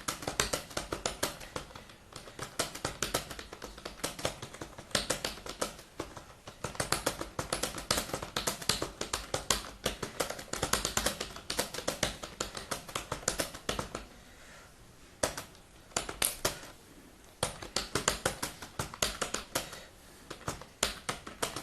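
Computer keyboard being typed on fast and continuously, a rapid patter of key clicks in bursts with a couple of short pauses about two-thirds of the way through.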